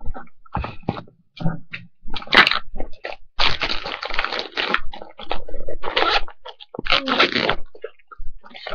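Rustling and crackling handling noise as something is fiddled with, probably a makeup compact: a run of short scrapes and clicks, with a few longer hissing rubs in the middle.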